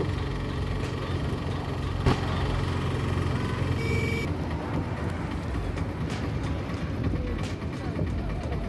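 Auto rickshaw engine running steadily as it drives along, heard from inside its open passenger cabin. A single sharp knock comes about two seconds in, and a brief horn beep about four seconds in.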